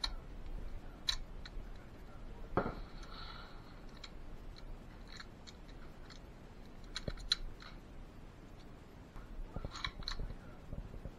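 Cartridges being pushed one by one into the magazine of a Mosin Nagant M38 carbine: small metallic clicks and scrapes of 7.62x54R rounds going into the action, with a sharper knock and a brief scrape about two and a half seconds in and a cluster of clicks near the end.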